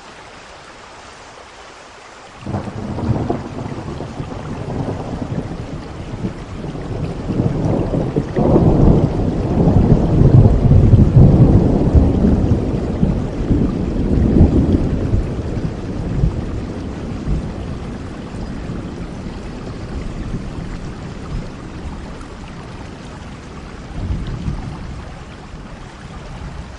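Steady rain with a long rolling thunder rumble that breaks out about two seconds in, builds to its loudest around the middle and slowly dies away, with a smaller roll near the end.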